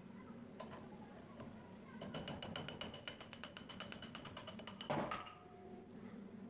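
A steel rod works an old wooden handle off a rusty tang clamped in a vise, making a rapid, even run of metallic clicks, about a dozen a second with a ringing tone. This ends nearly three seconds later in a single loud knock as the handle comes free.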